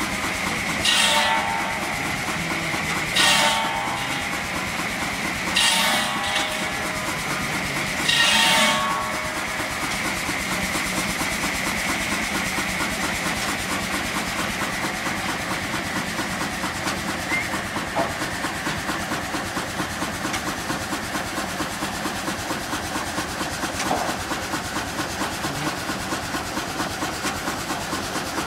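Steam traction engine running under load on a drive belt, with a fast, even exhaust and machinery beat. Four short, louder hissing bursts come in the first nine seconds, about two and a half seconds apart.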